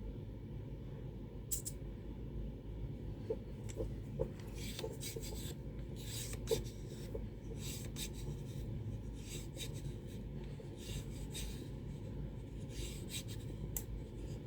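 Mountain bike suspension air pump being worked by hand in short strokes, each a brief rasping hiss, about one or two a second, as it pressurises the EAS pressure switch for testing, over a steady low background hum.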